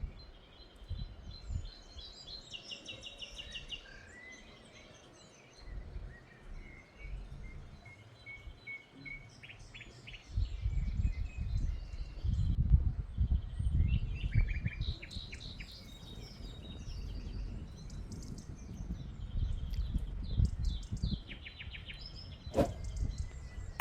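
Several small birds chirping and trilling, over a low rumble that grows louder about ten seconds in, with a sharp click near the end.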